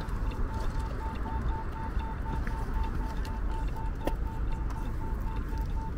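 Outdoor street ambience: a steady low rumble of traffic or wind, with a thin electronic beep repeating evenly about five times a second throughout.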